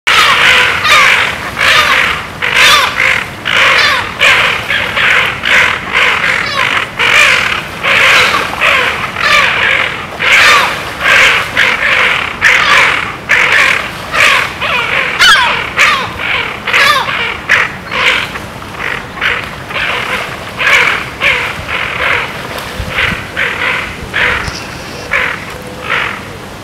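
Birds calling over and over in a rapid series of short, harsh calls, about two or three a second, thinning out and growing quieter over the last several seconds.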